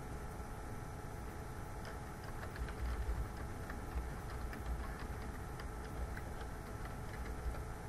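Computer keyboard keys clicking in a quick uneven run as a login password is typed, over a steady room hum, with a few low thumps about three seconds in.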